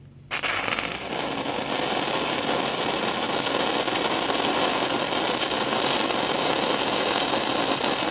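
Stick-welding arc with a 6010 electrode laying a tack weld in the root at the bottom of a pipe joint: a steady, even crackle that strikes up about a third of a second in.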